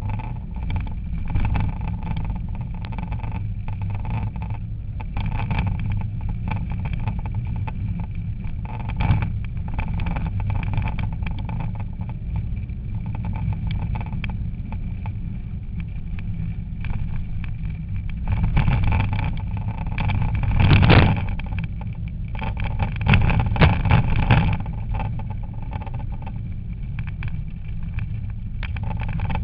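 Rally car running flat out on a special stage, heard from inside the cabin: a loud, steady engine drone with road noise. Louder, harsher bursts come between about 19 and 24 seconds in.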